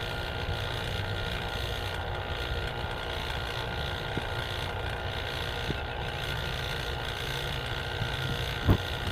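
Vacuum pump running with a steady hum, evacuating an air-conditioning line set through a single hose. The vacuum is already below 900 microns and still falling.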